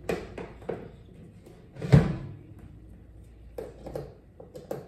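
Handling knocks and clicks from a Waydoo Flyer One e-foil battery's hard case being turned and bumped while the fast-charger plug is fitted into its back. The loudest knock comes about two seconds in, with a run of smaller clicks near the end.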